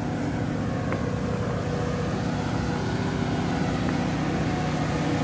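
Steady low engine drone of a roll-on/roll-off ferry, heard from its open vehicle deck, with a couple of faint ticks.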